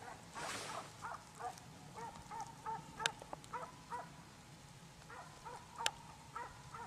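Hunting hounds baying on a hare's trail, heard faintly as a quick, irregular series of short yelping calls. There is a sharp click about three seconds in and another near the end.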